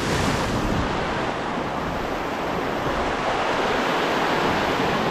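Sea surf washing in over a low rock shelf and breaking into foam: a steady, unbroken rush of water.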